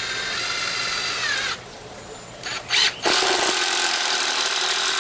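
Power drill driving a screw into a wooden board: a whining run that drops in pitch as it ends, two short trigger blips, then a second, longer run. The screw bites and pulls the board in, showing the wood there is still sound enough to hold it.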